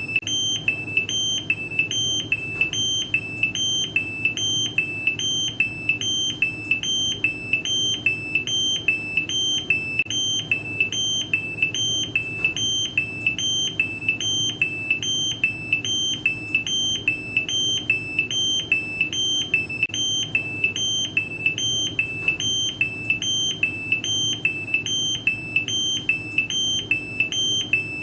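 Electronic two-tone error alarm: a high beep and a slightly lower one alternating evenly without a break, about two cycles a second, over a low hum.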